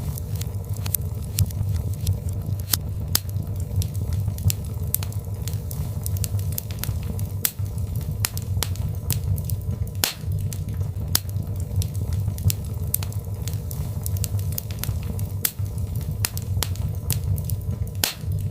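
Birch logs burning in a fireplace: irregular sharp crackles and pops over a steady low rumble of flames, with a couple of louder pops about ten seconds in and near the end.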